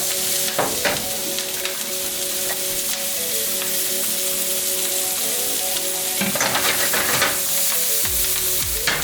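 Chopped jalapeno peppers and green onions sizzling in melted butter in a pot, with a steady hiss. A utensil stirring them clicks and scrapes now and then.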